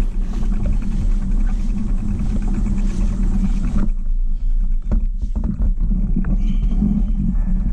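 Steady low rumble of wind and rolling vibration on a bike-mounted GoPro's microphone as the bicycle rides off across pavement, with scattered small knocks and rattles from the mount and bike.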